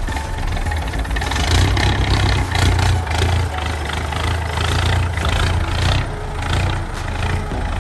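Off-road trial truck's engine running with a heavy low rumble, its level rising and falling with the throttle, with scattered sharp crackles over it.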